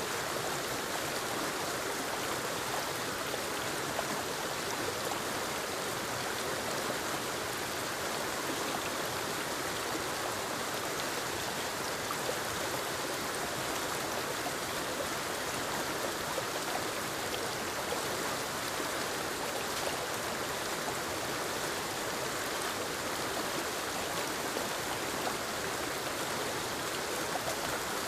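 Forest waterfall cascading into a creek: a steady, even rush of falling and flowing water with no breaks.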